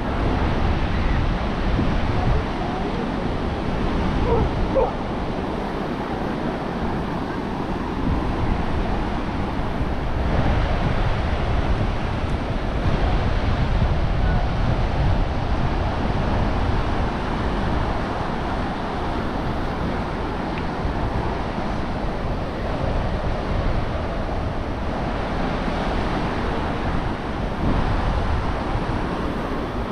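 Ocean surf washing onto the beach, steady and continuous, with wind buffeting the microphone.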